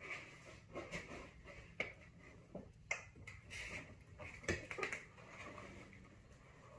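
Faint scattered clicks, taps and rustling, as of gear and cushions being handled and fitted into a small camper. The sharpest knocks come about two, three and four and a half seconds in.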